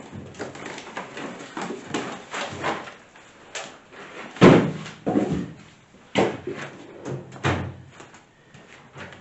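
Clunks and knocks from a steel tool cart being handled during assembly, a drawer sliding and banging against its slides. A single loud bang comes about four and a half seconds in, followed by several lighter knocks.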